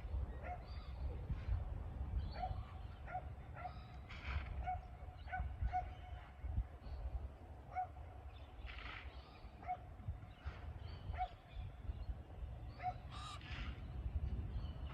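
Birds calling: many short, scattered calls, a few louder squawks among them, over a low steady rumble.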